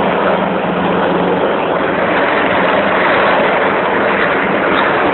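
Eurocopter EC725 Cougar military helicopter running close by: a loud, steady rush of rotor and turbine noise with a steady low hum underneath.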